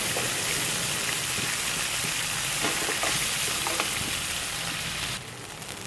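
Chopped garlic and chilies sizzling in melted margarine in a hot wok, a steady frying hiss with a few faint clicks. The sizzle drops off suddenly about five seconds in.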